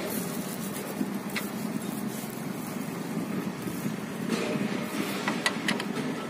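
A steady low background rumble, with a few light metallic clicks as a socket wrench is fitted onto a motorbike's oil drain bolt: one about a second in and a quick cluster near the end.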